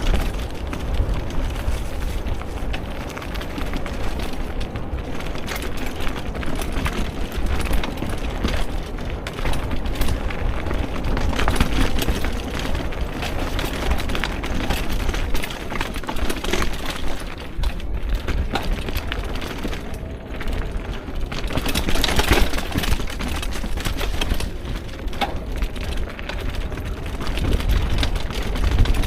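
A vehicle driving on a rough forest track: a steady low rumble with constant crackling knocks and rattles.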